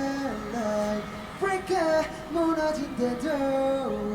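Several high male voices singing a cappella in harmony, sustained sung notes moving between pitches.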